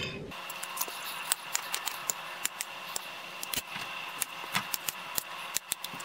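Kitchen knife slicing strawberries on a plate, the blade clicking irregularly against the plate over a steady hiss.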